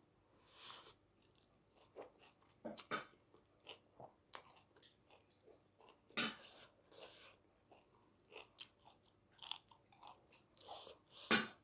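A person eating close to the microphone: chewing, with irregular sharp crunches of crisp food, the loudest about six seconds in and near the end.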